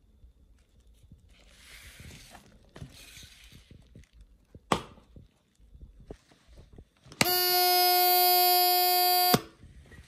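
Small electronic buzzer on a homemade cardboard model sounding a loud, steady, buzzy tone for about two seconds, starting and stopping abruptly. A single sharp click comes a few seconds before it.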